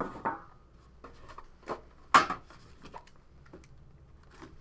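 Hands opening a Panini Immaculate basketball card box, the lid slid off and the inner case lifted out: light scrapes and a few sharp knocks, the loudest about two seconds in.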